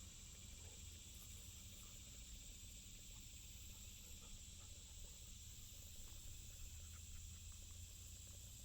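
Faint, steady high-pitched insect chorus over a low rumble, with a few faint ticks.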